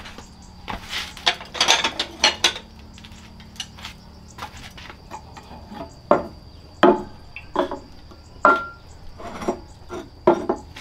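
Dishes and utensils clinking and knocking in irregular, scattered taps, with a busier cluster of clatter in the first few seconds. About eight and a half seconds in, one tap rings briefly like struck crockery.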